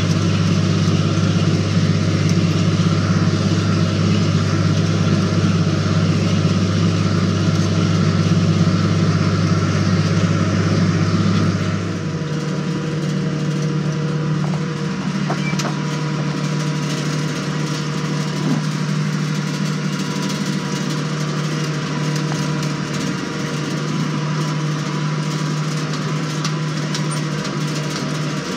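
Tractor engine running steadily under load, heard from inside the cab, while it pulls a field cultivator. About twelve seconds in, the deep hum drops away and the engine runs lighter and a little quieter, as the cultivator is out of work with its wings folded up.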